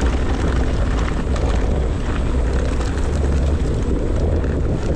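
Electric mountain bike riding over a rough trail: a steady low rumble of wind buffeting the microphone, tyre rolling noise, and many small irregular clicks and knocks from the bike and the ground.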